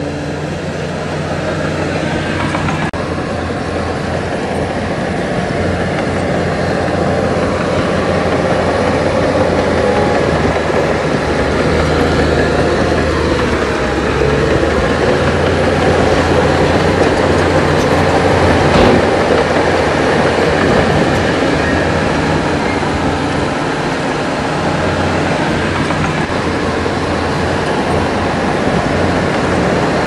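Heavy diesel engine of earthmoving machinery, a bulldozer or dump truck, running steadily under load.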